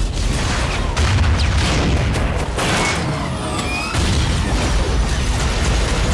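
Film action sound effects: explosions and heavy booming impacts, with sudden hits about one, two and a half and four seconds in, over a music score.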